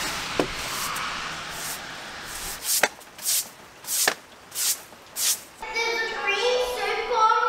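A broom sweeping a wet wooden walkway in short scratchy strokes, about two a second. In the last couple of seconds a young child's voice takes over.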